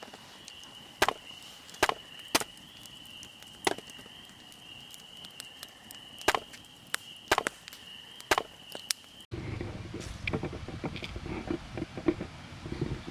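A series of sharp knocks, about seven at uneven intervals, over a steady thin high-pitched tone. About nine seconds in, the sound cuts abruptly to denser rustling and handling noise.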